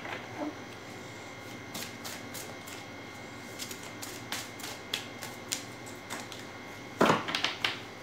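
Oracle cards being shuffled by hand: a run of light, scattered clicks and flicks as cards slide through the deck, then a louder quick flurry of card snaps about seven seconds in.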